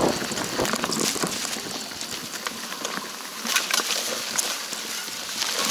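Mountain bike rolling down a dirt trail: steady tyre and trail noise with scattered clicks and knocks from the bike rattling over the ground.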